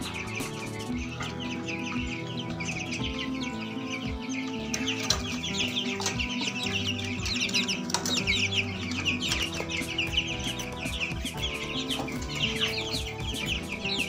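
A shed full of young chickens peeping, many short, high, falling chirps overlapping without a break.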